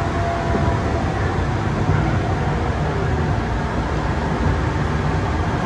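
Tokyu 8500 series electric train running at speed: a steady rumble of wheels on rail and running gear, with a faint steady whine that fades out early on.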